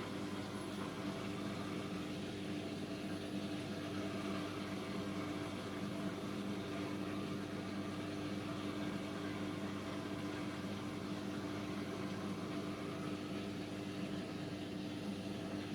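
Electrolux PerfectCare 800 condenser tumble dryer running: a steady motor and fan hum with a constant low drone and an even rush of air, unchanged throughout.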